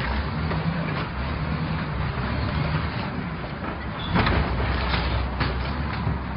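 A motor vehicle's engine running steadily with a low rumble, amid street noise, with a sharp knock about four seconds in and another a second later.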